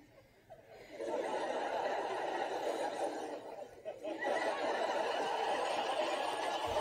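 Studio audience laughter from a Mr. Bean episode playing on a TV, heard through the set's speaker. It swells about a second in, dips briefly near the four-second mark and picks up again.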